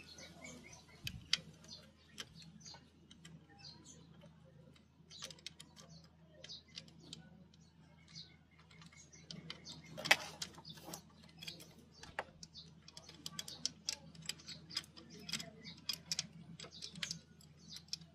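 Scattered small metallic clicks and clinks of a wrench, the timing chain and the cam sprocket being handled on an open motorcycle engine. The loudest click comes about ten seconds in. Birds chirp faintly in the background.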